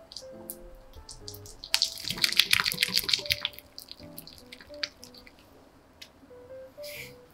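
Whisk with silicone-coated wires creaming softened butter in a glass bowl: a rapid flurry of scraping strokes for about two seconds, then a few scattered strokes and one more short burst near the end.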